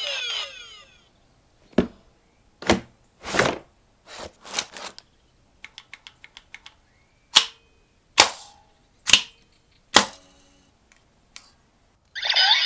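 Sharp plastic clicks and snaps from a DX Maximum Mighty X Gashat toy's latches and release button being worked by hand: about a dozen separate clicks, with a quick run of small ticks in the middle. The first second holds the tail of the Mighty Action X Gashat's electronic game-over sound effect fading out, and an electronic toy sound starts right at the end.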